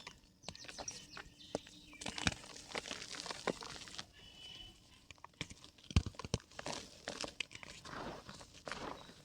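Dry yellow mud crumbling and crunching in a clay pot: irregular crackles, with a few sharper snaps about two seconds in and twice around six seconds in.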